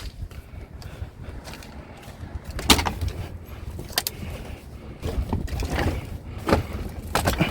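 Several sharp snaps of wire being cut with hand cutters, with rustling and handling noise of scrap in between.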